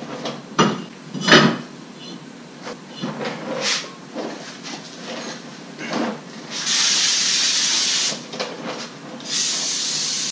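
A couple of metal clanks as a brake rotor is handled onto the wheel hub, then two long bursts of aerosol brake cleaner spraying onto the rotor, the first about a second and a half, the second about a second near the end.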